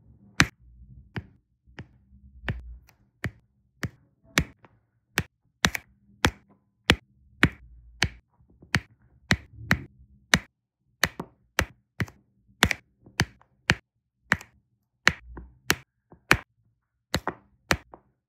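Diamond-painting drill pen pressing resin drills onto the adhesive canvas one at a time: a run of sharp little clicks, about two a second, unevenly spaced.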